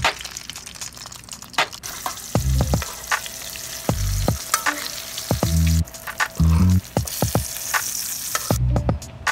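Dried fish frying in hot oil in a wok: a steady sizzle that grows louder about two seconds in and drops away near the end, with a metal spoon clicking and scraping as it turns the fish. Deep bass notes of background music sound at intervals over it.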